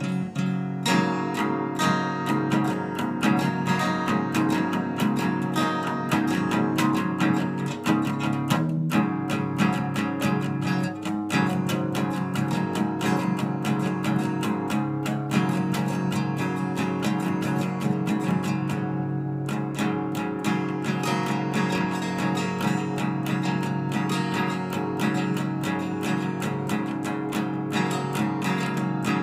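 Acoustic guitar played solo with fast, steady strumming of chords, with brief breaks in the rhythm about nine and eleven seconds in.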